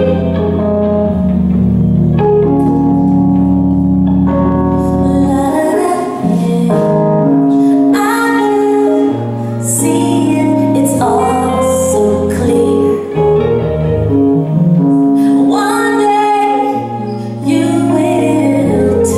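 Live soul song: a woman singing over sustained chords on a Korg Grandstage stage piano, with an acoustic guitar accompanying.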